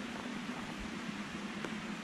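Small waterfall splashing steadily into a stream, an even rush of falling water.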